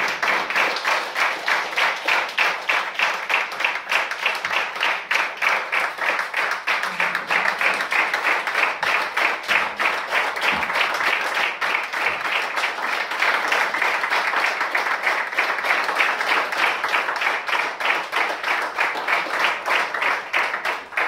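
Theatre audience applauding, the clapping pulsing in a regular rhythm; it dies away at the end.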